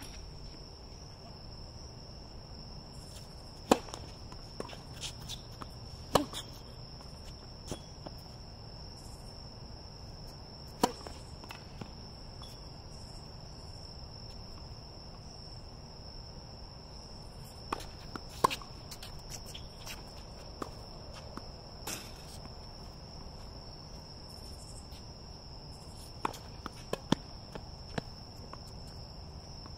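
Crickets trilling steadily in a high, unbroken tone, with scattered sharp knocks of a tennis ball struck by racket strings and bouncing on a hard court, including a quick run of bounces near the end.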